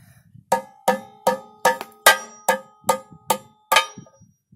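Metal hammer blows on a titanium screw, about nine evenly spaced strikes of roughly two and a half a second, each with a short metallic ring, as the screw is hammered to bend it.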